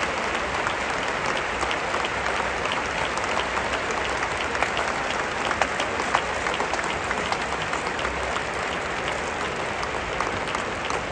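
Large stadium crowd applauding, a dense, steady clatter of many hands clapping.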